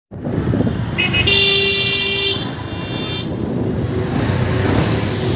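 Road traffic heard from a moving two-wheeler: a steady low rumble, with a vehicle horn honking about a second in for around two seconds.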